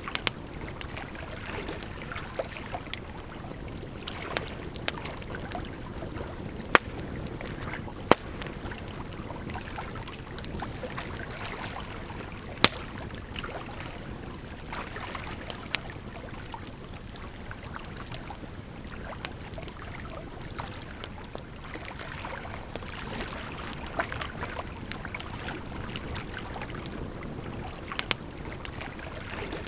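Wood fire crackling, with sharp pops every few seconds, over a steady rush of flowing water.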